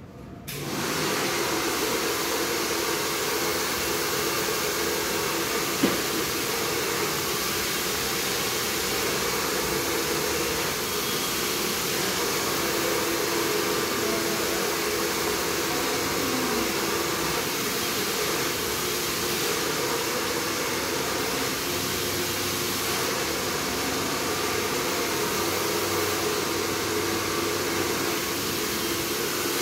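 Hand-held hair dryer switched on suddenly, then blowing steadily with an even whoosh and a low hum. A single sharp click comes about six seconds in.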